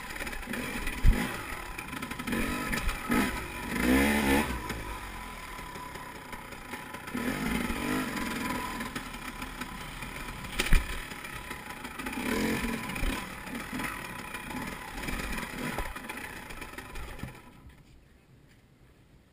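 KTM 300 EXC two-stroke single-cylinder enduro engine revving in short surges and dropping back between them as the bike is ridden over stone steps and rough ground, with a couple of sharp knocks and some clatter. The sound fades almost away near the end.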